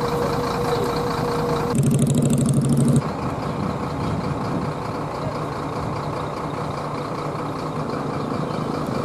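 Bus engines at a terminal: a steady tone, then a louder low drone with a fast rattle for about a second. After an abrupt change about three seconds in, steady outdoor background noise follows.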